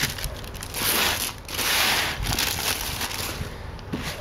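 Clear plastic wrap crinkling as hands pull it off a cardboard presentation box, with two louder rustling stretches about one and two seconds in.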